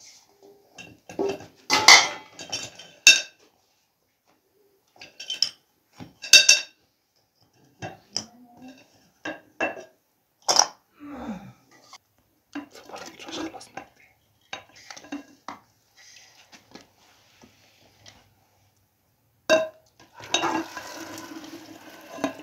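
Metal kitchenware clattering: a pot lid, a slotted metal serving spoon, an aluminium cooking pot and metal plates knocking together with ringing clanks, and the spoon scraping as food is dished out of the pot. The loudest clanks come about two, six and ten seconds in, and a longer stretch of scraping and clatter comes near the end.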